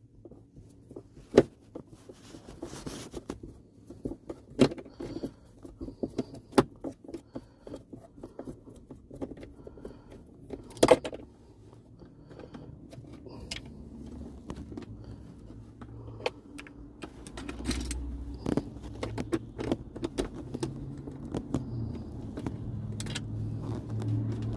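Irregular clicks, taps and small scrapes of hand tools and plastic car-interior trim being handled while a USB port module is pried loose and unscrewed. A faint low rumble comes in over the last few seconds.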